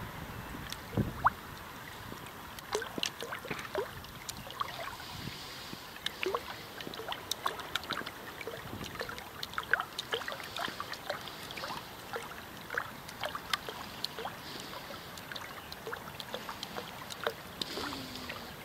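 Curved scoop blades of a homemade zero-head water turbine spinning in a shallow stream, slapping the water and throwing off splashes. There are many short, irregular plinks of drips over a steady trickle of flowing water.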